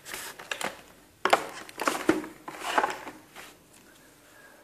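Handling noise: a series of short clicks, knocks and rustles, busiest in the middle, with no beep.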